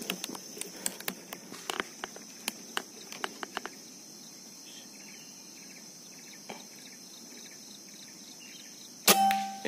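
Steady chorus of crickets, with scattered light clicks in the first few seconds. About nine seconds in, a PCP air rifle (a BOCAP FX Crown) fires a single sharp shot that rings briefly.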